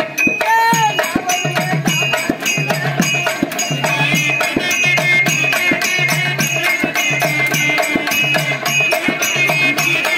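Folk stage-drama band music: a hand drum played in a fast, steady rhythm with a recurring low drum figure, under a sustained melody line.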